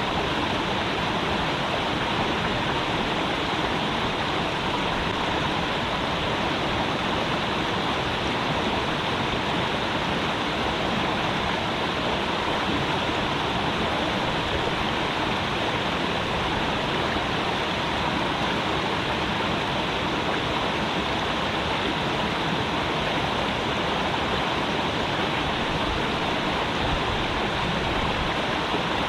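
A creek flowing: a steady, unbroken rush of running water.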